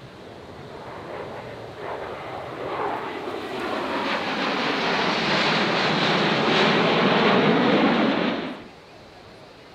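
Four F-16 Fighting Falcon jets flying past in close formation: the jet roar swells over several seconds to a loud peak, then cuts off suddenly near the end.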